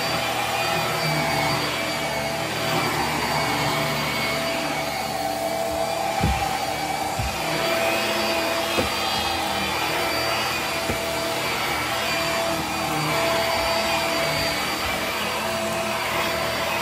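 Hart cordless stick vacuum running on carpet: a steady motor whine over the rush of suction. About six and seven seconds in there are a couple of low thumps, with a few light clicks later, as the floor head is pushed around.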